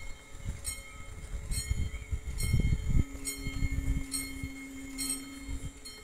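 Level crossing warning bell ringing about once a second as the barriers come down, with low rumbling and a steady low hum that starts about halfway through.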